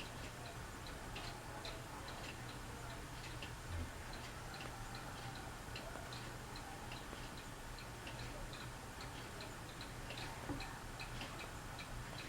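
Fasco Gulf Stream ceiling fan running: a faint, steady low hum with light, irregular ticking, several ticks a second, and a soft low knock about four seconds in.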